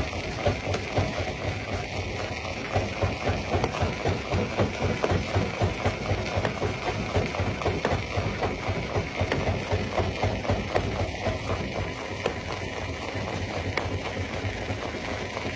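Stone jaw crusher running, with a rapid, uneven knocking and clatter of rock being broken.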